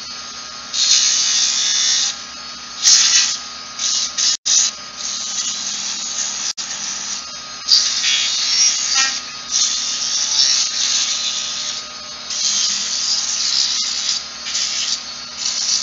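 80-grit sandpaper held against a turned wooden spindle spinning on the lathe, hissing in repeated passes of a second or two over the lathe's steady hum: the final sanding of a spindle that will be painted.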